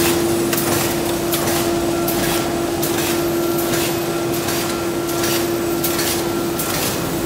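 Plastic wicket bag making machine running in production: a steady blower-like hum under a quick regular clacking of the machine's cycle, about two strokes a second.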